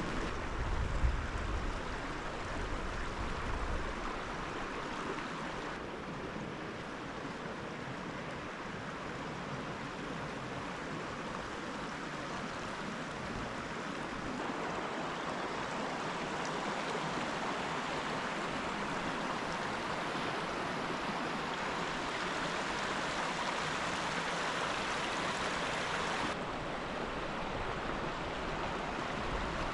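Mountain stream rushing steadily over rocks. The sound changes abruptly a few times, about six seconds in, halfway and near the end.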